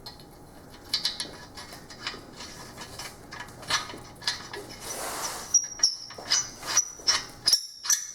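Metal knocks and clinks from a steel engine hoist boom being handled and fitted, ending in a run of sharp, ringing metal clinks about two a second in the last few seconds.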